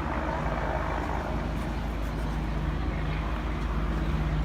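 Steady low drone of a moving car's engine and road noise, heard from inside the car.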